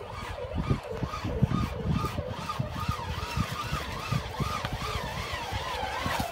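Electric Jeep 4x4's dual 60 kW drive motors and high-ratio reduction gearing whining in 4L low range while it crawls up steep stone steps. The pitch wavers up and down about twice a second as the load changes, over irregular low knocks and thumps.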